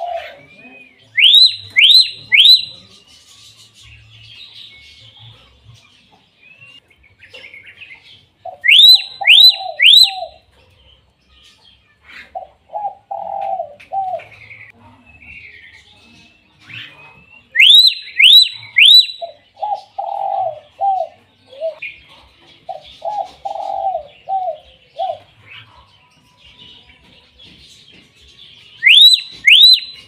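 Common hill myna calling: loud bursts of three quick, rising whistles, repeated about every eight to ten seconds, with runs of short lower notes in between.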